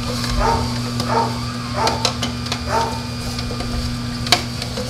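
Philips masticating slow juicer running under load: a steady low motor hum as its auger crushes apple and leafy vegetables fed down the chute. Four short squeaky bursts come in the first three seconds, and a sharp crack comes near the end.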